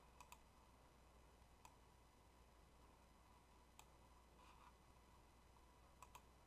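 Near silence broken by about six faint, sharp clicks at the computer: a quick pair just after the start, single clicks around one and a half and four seconds in, and another quick pair near the end.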